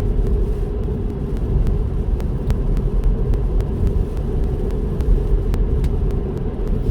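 Steady low road and tyre rumble heard inside a Tesla Model 3's cabin while driving on a wet road in light rain, with faint scattered clicks.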